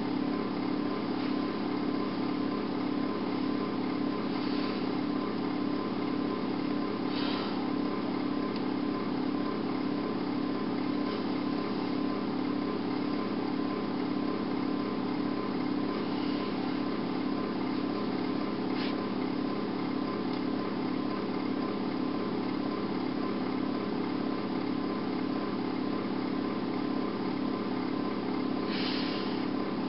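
Steady low mechanical hum at an even level, with a faint steady high tone and a few brief faint scratchy blips.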